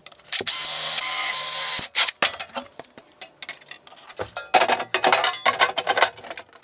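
Cordless drill boring through a thin metal mounting plate, running steadily for about a second and a half, then stopping abruptly. A string of sharp clicks and knocks follows as metal parts are handled and fitted.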